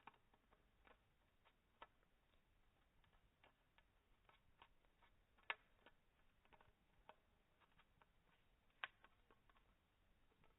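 Conure chewing a drinking straw: faint, irregular crunching clicks of beak on plastic, with two louder cracks, about five and a half and nine seconds in.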